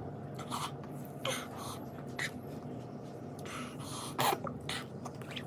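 A person sniffing, breathing sharply and clearing the throat in a few short bursts, the loudest about four seconds in, reacting to the burn of a very hot chili chip.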